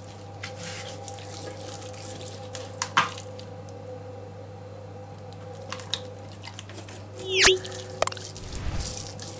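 Oiled hands rubbing over the skin of a whole raw carp: wet, slippery squelching with scattered small clicks, over a steady low hum. About seven and a half seconds in there is one short, loud squeak that falls quickly in pitch.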